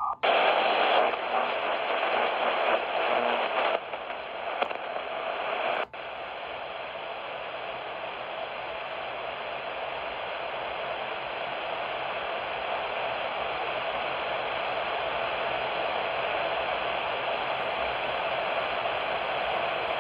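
Shortwave radio receiver hissing with band static while tuned between stations. The hiss cuts out briefly twice, just after the start and about six seconds in, then runs steadily.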